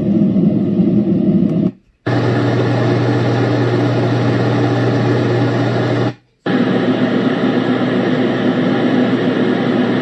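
Renpho sleep sound machine playing its recorded fan sounds through its speaker: a steady fan rush with a low hum. It switches to a different fan sound twice, about 2 seconds in and about 6 seconds in, each change marked by a brief drop to silence.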